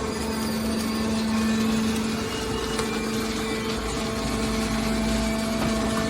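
Hydraulic baler's motor and pump running with a steady hum. A deeper rumble comes in about four seconds in and lasts over a second.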